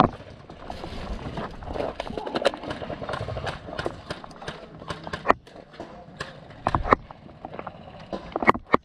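A run of irregular clicks and knocks, with a cluster of louder sharp ones near the end.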